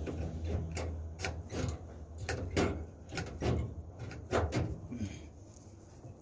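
Irregular knocks and taps from hand work on sheet-metal HVAC ductwork, over a low background hum that fades about two seconds in.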